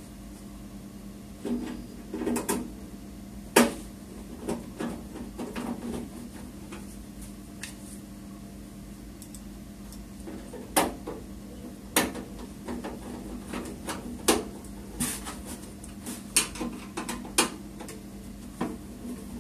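Irregular clicks and knocks of a screwdriver and screws against the sheet-steel side cover of a Dell Inspiron 620 desktop case as the last two cover screws are fitted, over a steady low hum.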